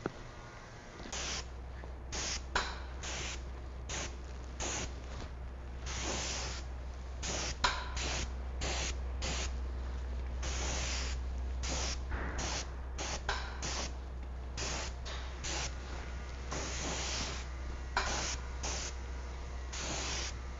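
Spray gun spraying silicone insulator coating in dozens of short hissing bursts, a few lasting about a second, over a steady low hum.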